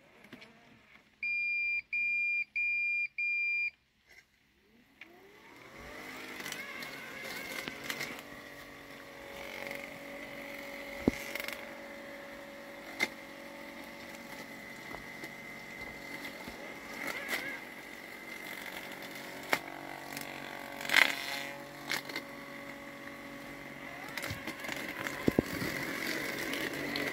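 LandXcape LX790 robotic lawn mower giving four short, loud beeps, then its motor spins up with a rising whine about five seconds in. It then runs with a steady whine as it drives through wet weeds, broken now and then by sharp knocks and cracks.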